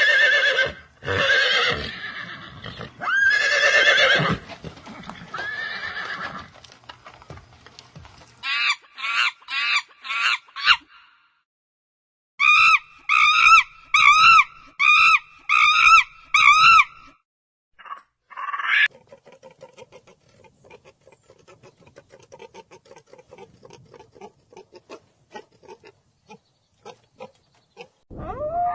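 A horse whinnying loudly in the first few seconds, followed by a string of other short, repeated animal calls: a quick run of calls, then a regular series of about two pitched calls a second, then a faint rapid patter near the end.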